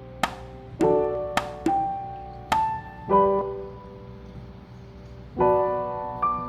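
Background piano music: single notes and chords struck one after another, each ringing and fading away, with a new chord about five and a half seconds in after a lull.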